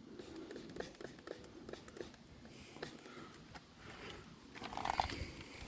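Car door being swung open and shut by hand: faint clicks and light knocks from the door check strap, with one brief squeak about five seconds in.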